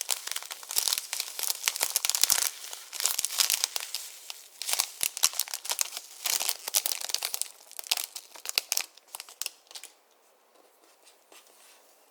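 Clear slime being kneaded and stretched by hand, with a dense run of crackling and popping that stops about ten seconds in.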